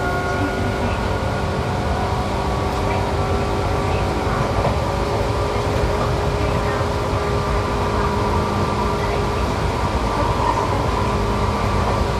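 Seibu 263F electric train running at a steady speed, heard from inside the car: a constant roar of wheels on rail with a steady motor and gear whine that holds its pitch.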